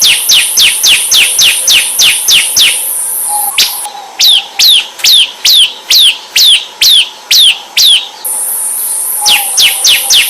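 Bar-winged prinia (ciblek) song. It starts as a fast run of short, falling chirps, about six a second. After a short pause it switches to louder, slower falling notes, about three a second, and the fast run comes back near the end. A steady high hiss runs underneath.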